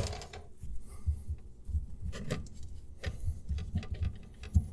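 Hands gripping and turning the white plastic slip nut on a PVC sink P-trap to loosen it: irregular soft plastic clicks and taps over repeated dull low thumps.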